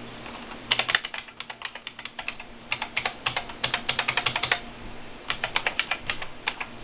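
Typing on a computer keyboard: quick runs of keystrokes starting about a second in, with a short break a little past the middle before a second run.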